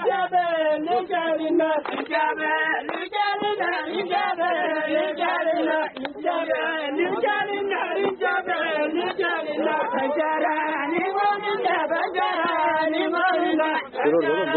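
A group of people singing together outdoors, a repetitive chant-like folk song carried by many voices at once. A few sharp knocks or claps cut through now and then.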